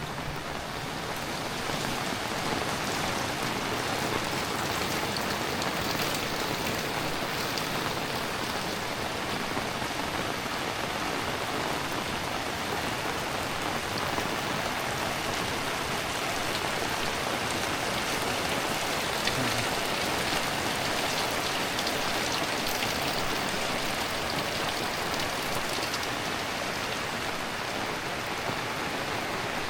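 Heavy rain falling steadily and pattering on surfaces, getting a little louder about two seconds in.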